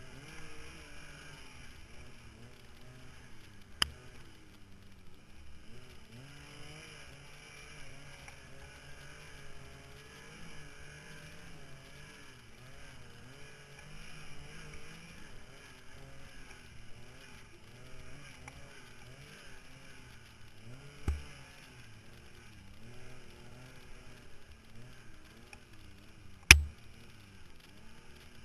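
Yamaha Nytro snowmobile's four-stroke three-cylinder engine running under way, its pitch rising and falling as the throttle varies. Three sharp knocks cut through it, the loudest near the end.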